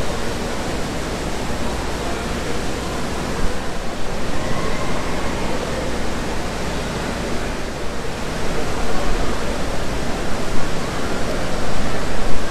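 Steady rush of falling and splashing water from the pool fountains and spouts of an indoor water park, echoing in the large hall. It grows louder toward the end.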